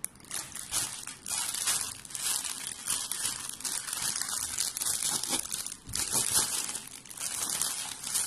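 Clear plastic packaging crinkling and rustling as packs of clothing are handled and laid out, a continuous crackle that swells and dips.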